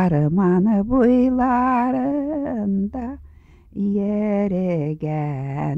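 A woman singing a Tatar folk song unaccompanied, in long held notes with vibrato, breaking off briefly about three seconds in before the next phrase.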